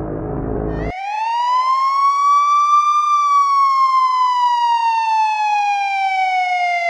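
A low rumble cuts off about a second in, and a siren sound effect starts: a single long wail that rises for about two seconds, then slowly falls.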